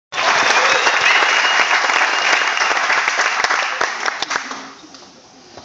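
Audience applauding, dense clapping that dies away about four and a half seconds in.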